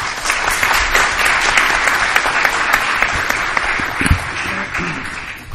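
Audience applauding, dense and steady, then tapering off near the end.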